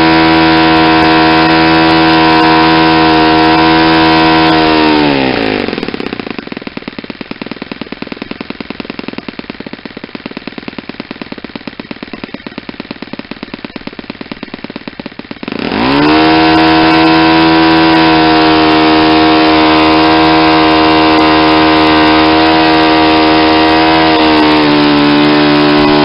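Saito 50 single-cylinder four-stroke glow engine driving a propeller on a test stand, on its first run after a rebuild with a new piston ring. It runs steadily at full throttle near 10,000 rpm, is throttled back about five seconds in to a slow idle with even, separate firing beats, then is opened up sharply to full speed again and holds there.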